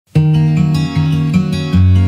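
Background music: a guitar song intro with plucked notes over a shifting bass line, starting abruptly right at the beginning.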